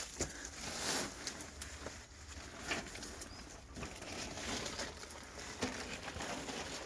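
Footsteps and brushing through dry undergrowth, with irregular crackles over a low wind rumble on the microphone.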